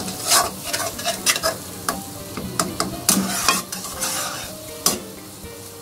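Metal slotted spatula scraping and clinking against a metal kadai in quick irregular strokes as scrambled egg and onion are stirred, over the sizzle of the egg frying.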